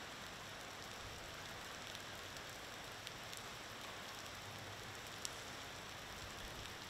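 Steady rain falling, a faint even hiss with a few scattered light clicks, one sharper click about five seconds in.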